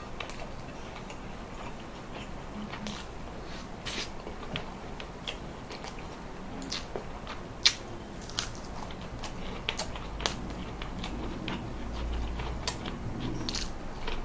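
A person chewing and biting food close to the microphone, with sharp, irregular crunches. The loudest crunch comes a little past halfway.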